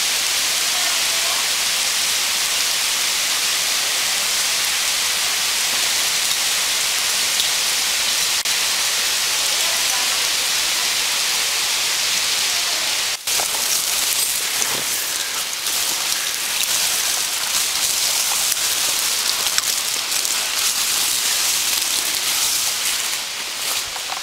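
Waterfall splashing down a rock face, a loud, steady hiss of falling water. The hiss cuts out for an instant about halfway through, then goes on with scattered crackles and knocks added.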